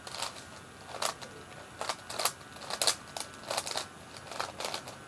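Layers of a Lan Lan 4x4x4 puzzle cube being turned by hand: a run of short, irregular plastic clicks and clacks.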